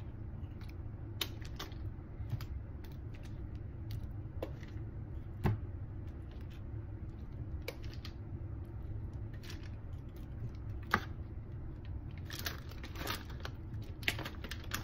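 Kitchen tongs clicking and tapping against a foil-lined sheet pan and a bowl as chicken wings are picked up and moved, scattered single clicks with a quicker run of them near the end. A steady low hum runs underneath.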